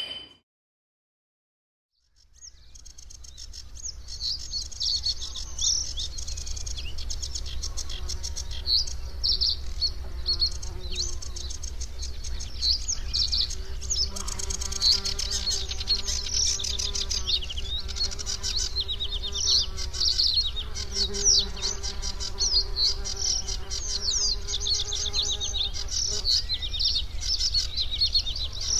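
A dense chorus of rapid, high chirping insects over a steady low hum. It fades in after about two seconds of silence, and from about halfway a faint held tone joins it.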